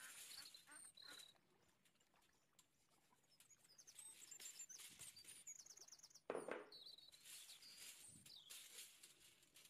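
Faint birds chirping, with short chirps and a quick trill, over quiet background. A single louder knock comes a little past the middle.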